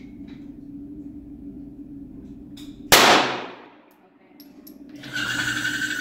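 A single pistol shot about three seconds in, sharp and loud, with a long echo dying away in the indoor range's concrete lane. A steady low hum is under it, and from about five seconds in a louder hiss with a steady high whine.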